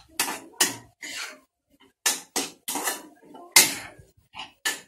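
A ladle scraping and knocking against a pan in about ten quick strokes with short pauses, as eggs with onion and tomato are stirred and broken up to scramble them.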